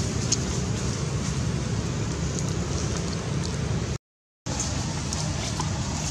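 Steady outdoor background noise, a low rumble under a hiss with a few faint clicks, cutting out for about half a second around four seconds in.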